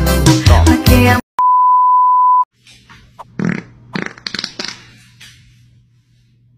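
Loud music cuts off after about a second, followed by a steady high beep tone lasting about a second. Then come a few short, softer indistinct noises over a faint low hum.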